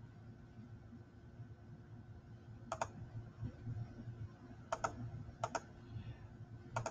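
Computer mouse clicking: four quick double clicks in the second half, over a faint steady hum.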